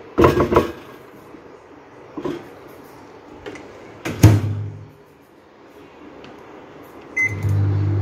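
A metal spoon scrapes and clinks in a dish of okra, then the Samsung microwave oven's door shuts with a thump about four seconds in. Near the end a short beep sounds and the microwave starts running with a steady low hum.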